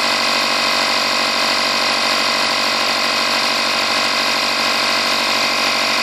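Portable Easy Air air compressor running steadily with an even, unchanging motor-and-pump hum, pumping air into a water heater expansion tank to raise its pre-charge toward 65 psi.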